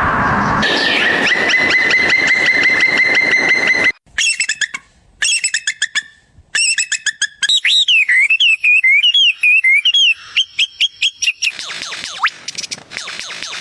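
Bird calls in two edited-together segments: first a rapid trill at one steady pitch, then, after abrupt cuts, a run of chirps and warbling whistles that rise and fall.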